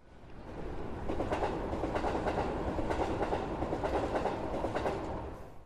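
Hanshin Mukogawa Line train running on the rails, the sound coming up over the first second and dying away near the end.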